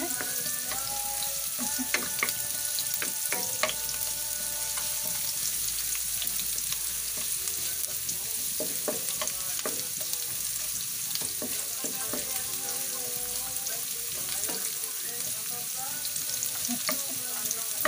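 Chopped garlic sizzling in hot oil in a frying pan as it turns golden, with a steady hiss. A few sharp clicks come from a wooden spatula stirring against the pan.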